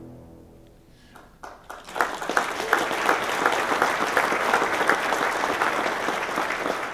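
Audience applauding: the tail of music fades out at the start, a few scattered claps come in about a second in, and full applause builds about two seconds in.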